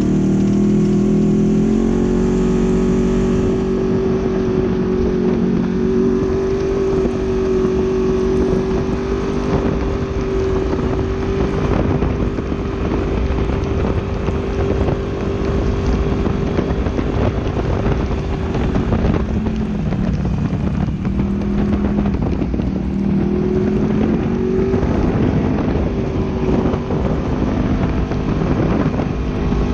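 Polaris RZR XP 900 side-by-side engine running steadily at speed. Its pitch drops for a couple of seconds about two-thirds of the way through, then climbs back.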